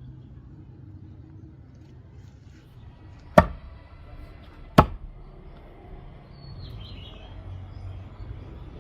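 Two sharp strikes about a second and a half apart, over a low steady rumble.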